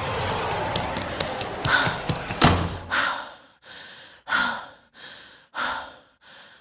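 A rough, noisy sound with a falling pitch and crackling clicks, cut off by a heavy thud about two and a half seconds in. Then a teenage girl gasps and sobs in ragged breaths, roughly one a second.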